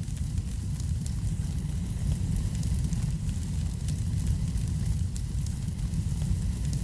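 Wood fire burning in a fireplace: a steady low rumble of the flames with frequent small crackles and pops scattered through it.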